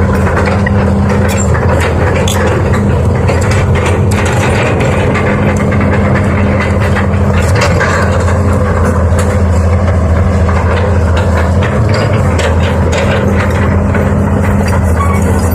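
Heavy diesel engine of an excavator or dump truck running steadily at a low, even pitch, with scattered short clicks and knocks over it.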